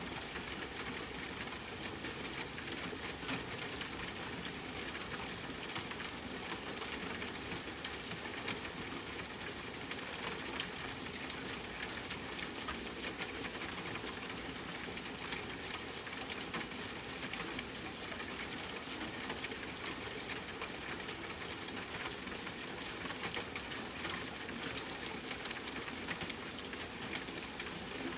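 Steady rain falling, a dense hiss with many small drop ticks throughout.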